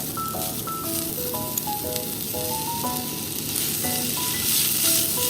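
Food sizzling in a hot pan as leftover vegetable fried rice is fried, the hiss getting brighter and louder about four seconds in. A light melody of short plinking notes plays over it.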